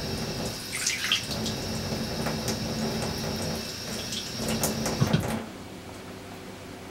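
Kitchen tap running into a stainless steel sink, with a few sharp knocks against the steel. The water stops about five seconds in.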